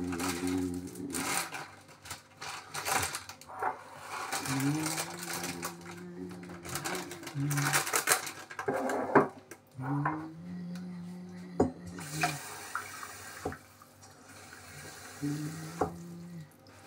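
Kitchen tap running into a sink, with clinks and knocks of pots and utensils. A low steady hum comes and goes four times, each spell lasting one to three seconds.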